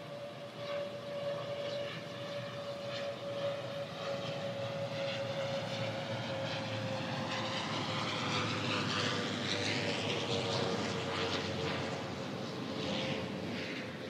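Military fixed-wing aircraft flying past: a steady engine tone that sinks slowly in pitch, under a sweeping, phasing rush that builds to its loudest about eight to eleven seconds in and then eases off.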